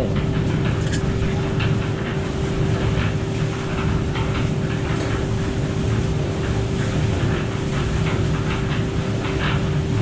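Portable cement mixer running: a steady mechanical hum with scattered, irregular clatter from the mix turning in the drum.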